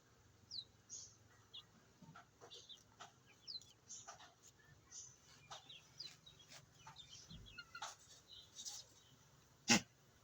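Young Aseel chicks peeping: short, high cheeps, many falling in pitch, scattered irregularly throughout. A single sharp knock near the end is the loudest sound.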